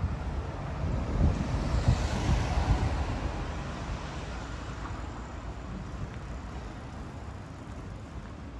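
A road vehicle passing close by: its noise swells over the first three seconds and then slowly fades away. Wind buffets the microphone.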